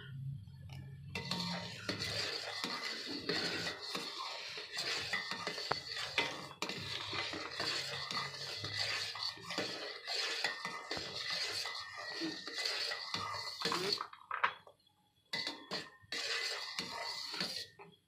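Silicone spatula stirring and scraping thickening custard around a steel pot, with small knocks against the pot. The stirring breaks off briefly about three-quarters of the way through, then starts again.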